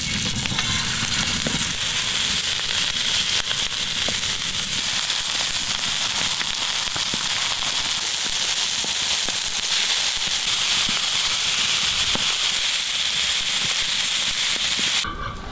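Smashed beef patties sizzling in a hot cast-iron pan: a steady hiss of frying fat with frequent small pops and crackles. It cuts off suddenly near the end.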